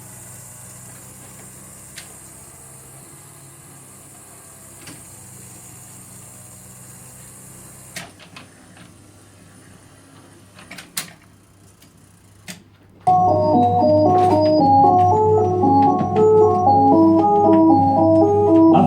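Rock-ola 460 jukebox working through a selection: a steady low hum with occasional clicks, then a few sharp clicks and clunks between about eight and twelve seconds in as the mechanism loads the record. About thirteen seconds in, the record starts playing loudly through the jukebox with an organ intro.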